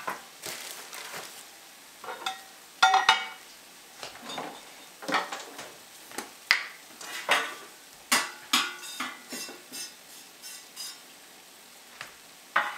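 Kitchen clatter: a metal muffin top tin and utensils being handled, a string of separate clinks and knocks, some with a brief metallic ring, the loudest about three seconds in and about eight seconds in.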